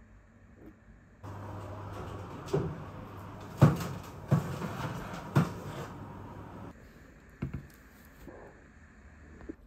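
Oven door pulled open and the baking tray handled: several sharp metal clunks and knocks, the loudest about three and a half seconds in, over a steady background noise, then a single click near the end.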